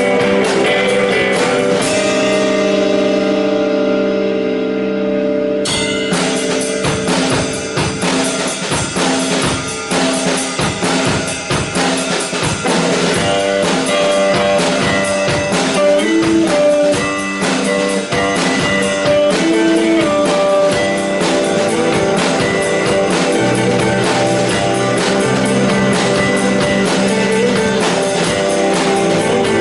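Rock band playing live with guitars and a drum kit. About two seconds in, the drums and cymbals drop out and a held guitar chord rings on its own. Near six seconds the full band comes crashing back in and keeps playing.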